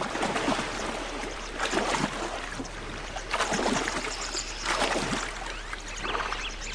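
Water splashing and sloshing as a hippopotamus wades through shallow river water, coming in several louder surges.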